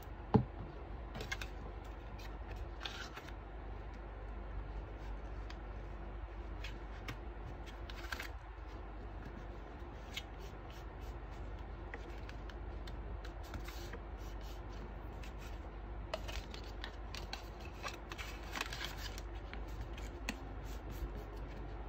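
Black cardstock being handled, pressed flat and slid into place, with scattered light rustles and taps; a sharp tap about half a second in is the loudest sound. A low steady hum runs underneath.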